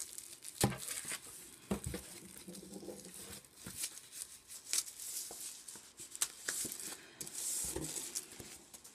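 Clear cellophane wrapper crinkling and tearing as it is picked open and pulled off a pack of paper, with sheets of thin paper rustling, in irregular short crackles and rustles.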